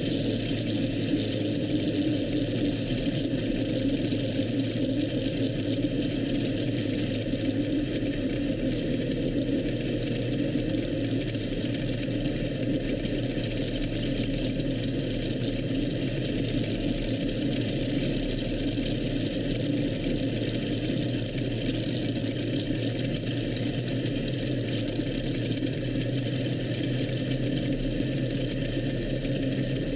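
IMCA Sport Modified race car's GM 602 crate small-block V8 running steadily at a low, even engine speed, heard on board, with no hard revving.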